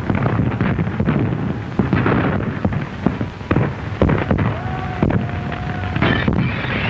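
Burning-building sound effect on an early-1930s film soundtrack: dense crackling and knocking over a hissy background. A short steady high tone sounds about two-thirds of the way through.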